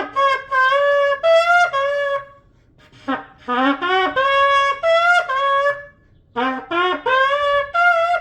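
A 51-inch kudu-horn shofar, its tip cut off and a rough, freshly sanded mouthpiece fitted, is blown in three phrases with short breaks between. In each phrase the horn jumps and slides between a low note and higher ones, with short glides carrying it from one pitch to the next.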